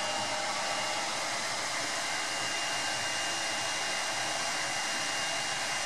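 Steady whooshing of a 3D printer's cooling fan running while it preheats, with a faint steady high whine over it.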